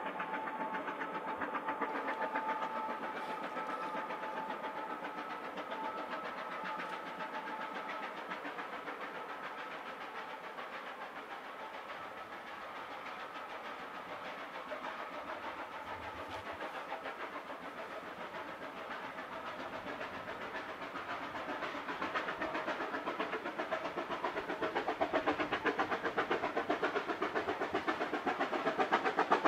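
Vale of Rheidol narrow gauge 2-6-2T steam locomotive working along the valley side, its exhaust chuffing in quick steady beats. It is distant at first and grows louder toward the end as it approaches.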